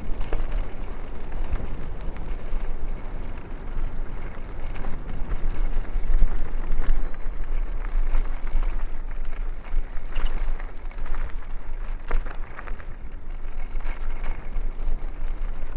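Wind buffeting a lavalier microphone on a cyclist riding an old trekking bike at a good pace: a steady low rumble, with several short sharp clicks and rattles along the way.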